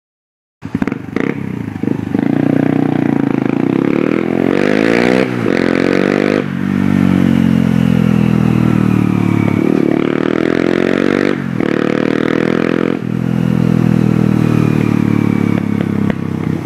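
Motorcycle engine running under way, its pitch climbing and falling several times with short breaks between. It starts suddenly a little under a second in.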